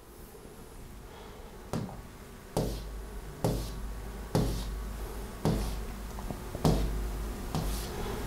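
A series of seven sharp taps, roughly one a second but not quite evenly spaced, each with a dull thud beneath it.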